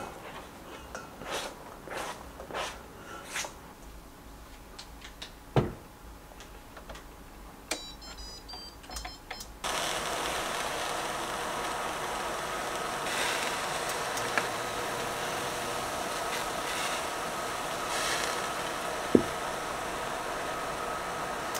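Pots and utensils clicking and knocking as they are set down, then a quick run of high beeps from an electric cooktop's touch controls. About ten seconds in, the cooktop switches on to medium heat and runs with a steady fan-like hum and a thin whine. A single sharp tap comes near the end.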